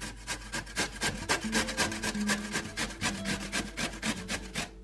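A zucchini being grated on the coarse side of a stainless-steel box grater: quick rasping strokes, about six a second, that stop just before the end.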